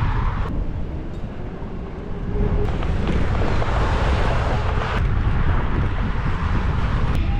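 Wind buffeting the microphone of a camera riding along on a moving bicycle, a loud steady rumble with rushing road noise underneath.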